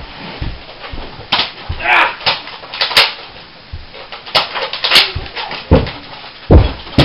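Irregular sharp clicks and snaps from spring-loaded Nerf foam-dart blasters firing, with two heavy thuds near the end as a child throws himself onto the carpeted floor.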